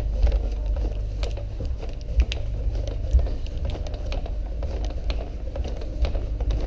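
Footsteps walking along an airport jet bridge: irregular clicks and knocks over a low rumble of handling noise from the handheld camera.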